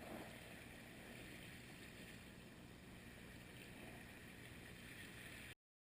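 Faint, steady wash of ocean surf on a beach, cutting off abruptly near the end.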